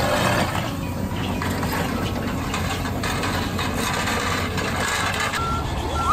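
Excavator engine running steadily, with rattles and knocks from the working machine. A few short, steady beeps start near the end.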